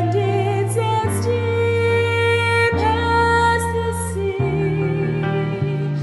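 Slow, tender song: a woman singing over sustained accompaniment chords and a steady bass line, the chords changing every second or two.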